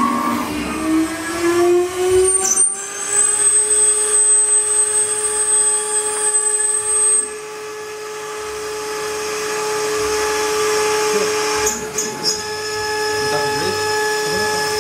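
CNC wood-carving router spindle whining as it spins up, its pitch rising over the first two to three seconds and then holding steady. The level dips about seven seconds in and slowly climbs again.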